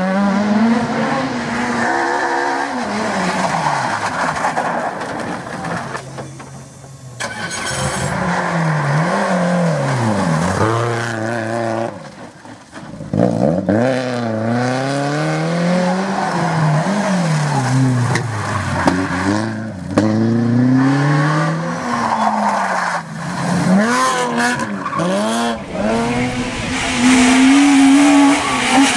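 Rally car engines at full throttle, the revs climbing and falling back sharply again and again through gear changes and lifts. The engine sound drops away briefly about six and twelve seconds in.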